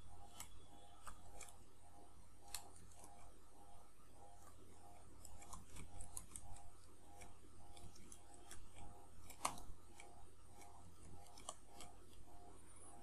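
Computer keyboard keys clicking irregularly as a command is typed, with a flurry of keystrokes about five to seven seconds in and the sharpest single click about nine and a half seconds in. Under it runs a faint, even ticking.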